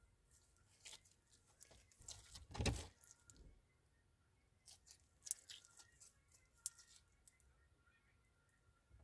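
Slime being squished and pulled by hand, giving faint scattered crackles and clicks. They come in two clusters, the louder one about two and a half seconds in and another with a sharp click around five seconds.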